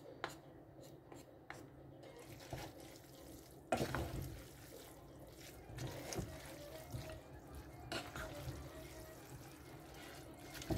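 Spaghetti in sauce being tossed with two wooden spatulas in a non-stick pot: faint wet squelching with soft scrapes and knocks of the wood on the pot, the loudest knock about four seconds in.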